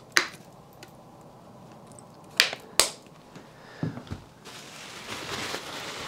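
Plastic ketchup squeeze bottle handled and squeezed, giving a few sharp clicks and a couple of soft squirts, then a steady faint noise from about four and a half seconds in.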